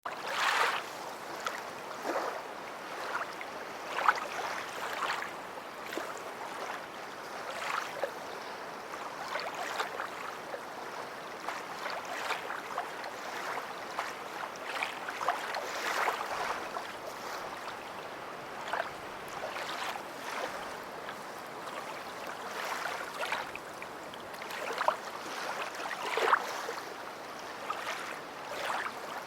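Sea water lapping and splashing at a beach: a steady wash of water with frequent short splashes.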